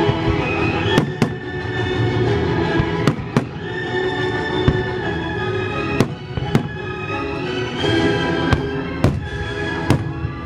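Fireworks shells bursting in the sky: about ten sharp bangs, several in quick pairs, over orchestral music playing throughout.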